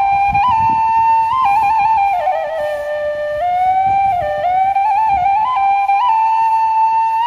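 Background music: a slow solo flute melody, one line holding notes and sliding between them.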